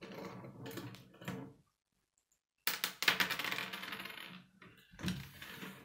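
Hard plastic K'nex pieces clicking and rattling as rods, connectors and a wheel are pulled apart and handled on a wooden table, in three stretches, the loudest about three seconds in.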